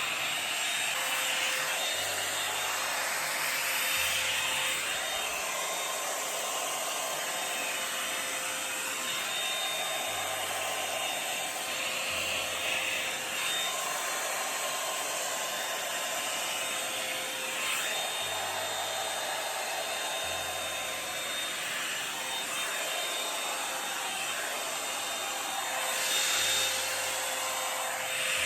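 Revlon One Step hot-air brush dryer running steadily on a raised heat setting, its motor and fan pushing a constant rush of air as it is drawn through hair to stretch and blow it out.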